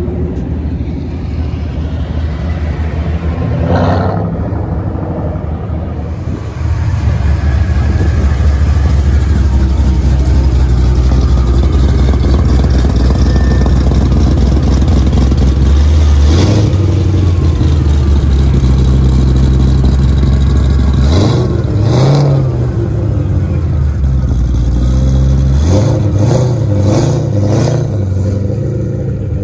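Loud Mustang exhaust: a car pulling away in the first seconds, then a Saleen Mustang's V8 idling with a deep rumble and blipping the throttle several times, before it pulls away near the end.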